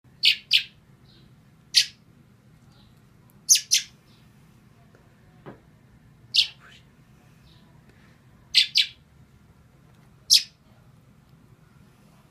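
Fledgling bird giving loud, sharp cheeps, singly or in quick pairs every one to two seconds, its beak gaping: a youngster's begging calls.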